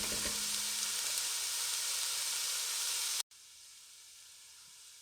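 Diced onions and carrots sizzling in oil in a pan, a steady hiss. It cuts off sharply about three seconds in, leaving a much fainter hiss.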